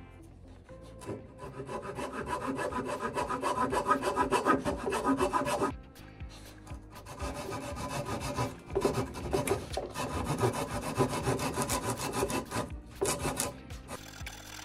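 A hand tool cutting and shaping a block of balsa wood with rapid back-and-forth strokes. The strokes pause briefly about six seconds in and again near the end.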